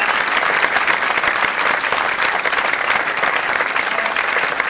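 Theatre audience and cast applauding together, many hands clapping at once, steady and loud.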